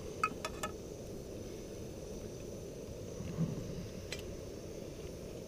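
Wind on the microphone, a steady low rumble, with a few light clinks of cookware in the first second and a single click about four seconds in.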